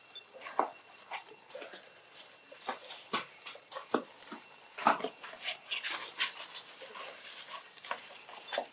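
Scattered short squeaks and clicks from a long-tailed macaque mother and her newborn infant, coming at irregular moments, a few louder than the rest.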